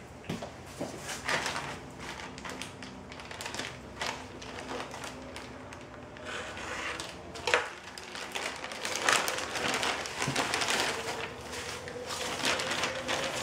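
Plastic courier satchel rustling and crinkling as it is opened by hand, with many short sharp crackles, then bubble wrap crinkling as the wrapped package is pulled out.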